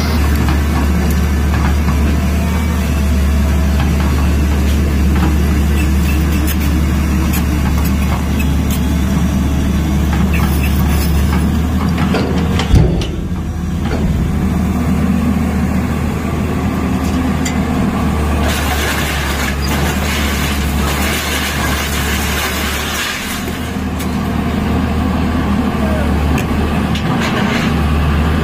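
Tata Hitachi EX215LC excavator's diesel engine running steadily while the machine works a debris pile. There is one sharp click about halfway through, and a stretch of added hiss a little later.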